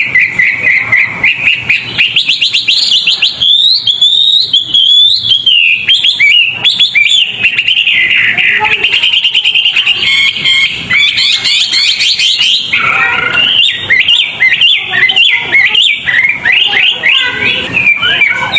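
A cage songbird singing a fast, dense, non-stop run of high chirps and trills, the kind of tight 'gacor' song used as masteran to train other songbirds.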